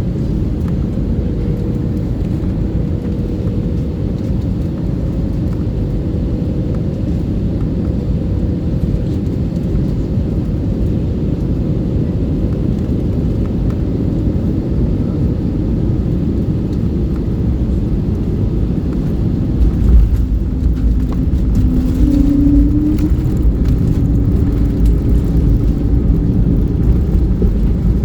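Airbus A320neo landing: a steady low rumble, then about twenty seconds in a sudden louder low rumble with rattles as the wheels meet the runway, and an engine tone that rises shortly after.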